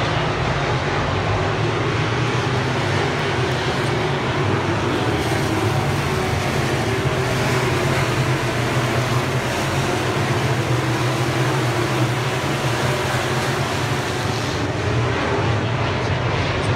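Dirt-track race cars' engines running at racing speed around a dirt oval, a steady, dense drone with no break.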